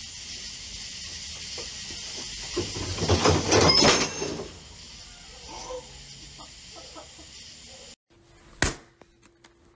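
A picnic bench tips over under a person who falls to the ground, with a burst of shrieking voices about three to four seconds in, over a steady high hiss. After a cut near the end there is one sharp click and a faint steady hum.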